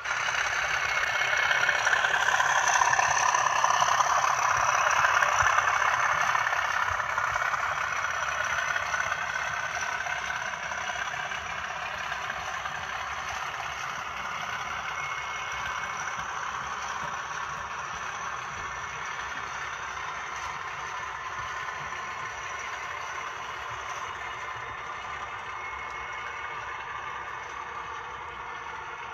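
A model train running on track, a steady rattling rumble of wheels on rails that starts suddenly, is loudest in the first few seconds, then slowly fades.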